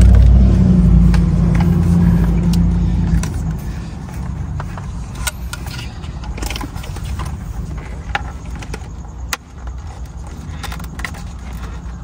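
Scattered clicks and taps of plastic steering-wheel trim and parts being handled and pressed into place, over a low steady hum that fades after about three seconds.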